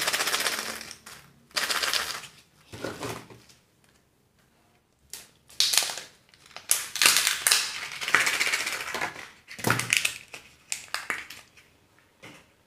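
Plastic and foil surprise-egg wrappers crinkling and tearing as they are opened by hand, in several bursts with short pauses between them.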